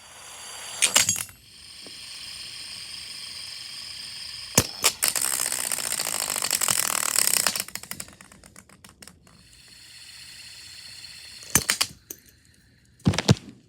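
Small toys being handled: a sharp knock about a second in, then a whir with rapid ticking that slows and dies away, and a few sharp knocks near the end.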